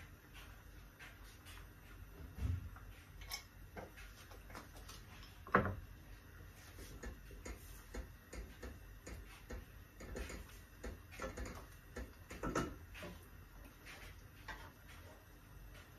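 Wooden spoon stirring in a stainless steel pot and a frying pan, giving scattered light clicks and knocks against the metal. The sharpest knock comes about five and a half seconds in.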